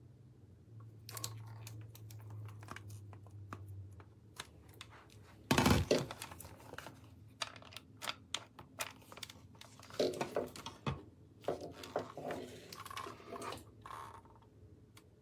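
Handling noises: crinkling and rustling with scattered clicks and knocks, a louder knock about six seconds in, and a faint low hum during the first few seconds.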